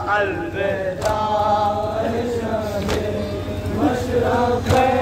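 Male voices chanting a noha, a Muharram mourning lament. A sharp, unison strike from the crowd's chest-beating (matam) lands about every two seconds, three times.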